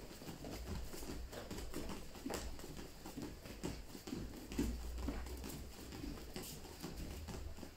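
Bare feet landing on mats in jumping switch lunges: a steady run of soft thuds, about two a second.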